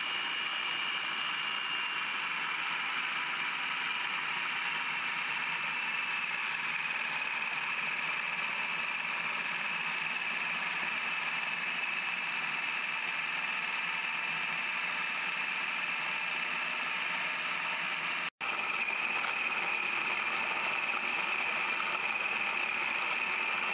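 Cuisinart food processor motor running steadily on low, its dough blade kneading bread dough in the bowl. The sound cuts out for an instant near the end, then carries on unchanged.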